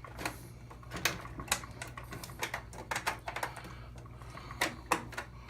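Irregular small clicks and taps of hand tools against hard plastic and metal parts as a replacement washer temperature-selector switch is worked into position. A faint steady hum lies underneath.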